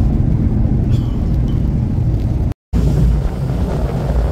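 Steady low rumble of a tour boat under way, its engine drone mixed with wind buffeting the microphone, broken by a split-second gap about two and a half seconds in.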